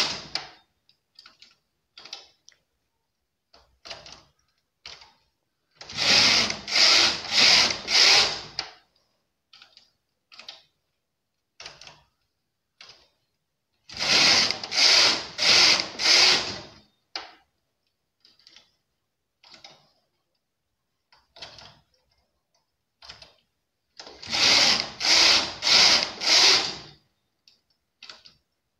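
Domestic knitting machine carriage pushed back and forth across the needle bed in quick sets of about four passes, three sets in all, each pass a loud rasping slide. Between the sets come light clicks of the transfer tool lifting the edge stitches onto the next needles to decrease one needle on each side.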